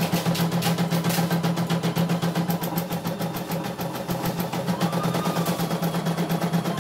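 CNY E900 computerised embroidery machine stitching at a fairly fast speed: a steady motor hum with rapid, even needle clicking.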